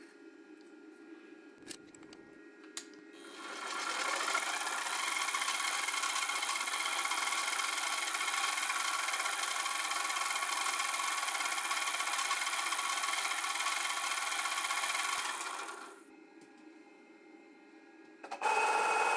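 CNC mini mill's brushed spindle motor spinning up with a rising whine about three seconds in, then running steadily with a small end mill cutting aluminium plate. It drops back to a low hum at about sixteen seconds and starts up again just before the end. Two light clicks come before the first start.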